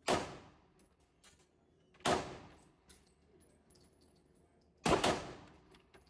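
Three handgun shots at a range, roughly two to three seconds apart, each a sharp crack followed by a short echoing tail.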